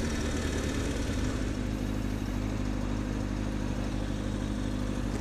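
Kawasaki Ninja ZX-6RR motorcycle's inline-four engine running steadily while riding, with a constant hum and noise haze.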